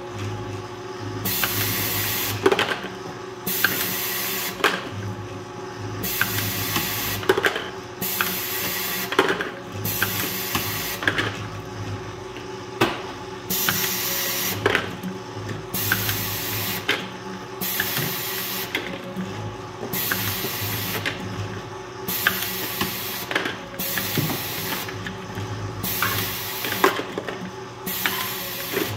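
Suction-gripper delta robot at work picking and placing plastic lids: short bursts of pneumatic air hiss from the vacuum gripper about every one and a half to two seconds, with a sharp plastic clack every couple of seconds, over a steady machine hum from the robot's motors and the conveyor.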